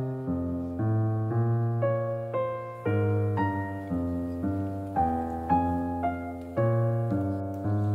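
Background piano music: a gentle melody of single struck notes, a new one about every half second, each fading after it is struck.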